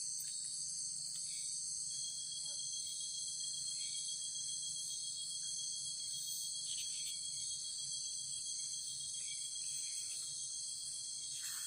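Night insects chorusing: a continuous, steady high-pitched trilling. A thin, steady higher tone joins about two seconds in.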